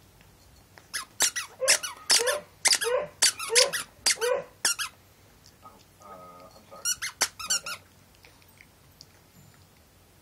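Plush gingerbread-man squeaker toy squeaking repeatedly as a dog bites down on it: a quick run of about ten sharp squeaks, a pause, then a few more shortly after the middle.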